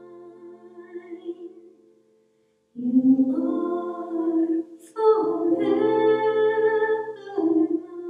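A woman singing the closing lines of a hymn. A held note fades away, there is a brief silence, then she sings further phrases with long sustained notes.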